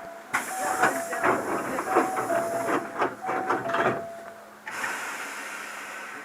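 Inside a Hankyu Railway train car, a two-note electronic chime (high then low) repeats about every second and a third over hissing air and light clunks. About three quarters of the way through, the chime and hiss stop and a steady low hum of the car remains.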